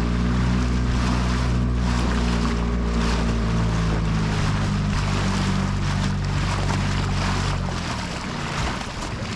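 Boat engine running steadily under way, with water and wind rushing past; the engine sound stops about eight seconds in, leaving the rush of water and wind.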